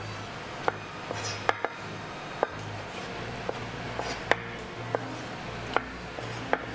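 Knife slicing cherry tomatoes on a cutting board: sharp knocks of the blade meeting the board, irregular, about one a second. Background music underneath.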